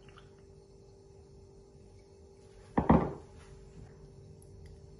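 A single heavy thunk about three seconds in, dying away quickly; otherwise only faint kitchen room tone.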